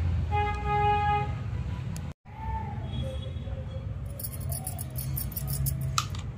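Steady low rumble of road traffic, with a vehicle horn sounding one steady note for about a second near the start. In the second half comes a quick, crisp patter of salt grains poured onto flour in a steel plate.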